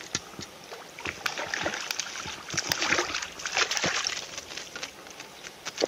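Water splashing and sloshing in a string of quick splashes, heaviest in the middle, as a small trout is scooped into a hand landing net and thrashes in it at the surface.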